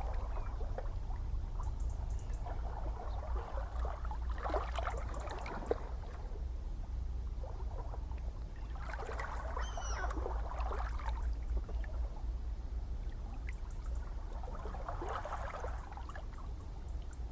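Gentle ocean waves washing in, three soft splashes about five to six seconds apart over a steady low rumble of the sea.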